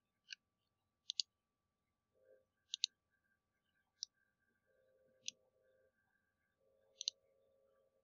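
Faint computer mouse clicking: six sharp clicks spaced a second or two apart, several of them quick double clicks, made while selecting and rotating a 3D model in CAD software.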